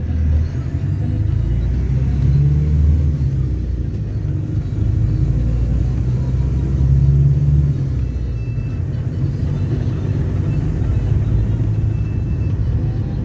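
Diesel engine of an Agrale-chassis Volare V9L minibus running under way, heard from inside the bus as a steady low rumble. It swells about two and seven seconds in and eases off slightly after about eight seconds.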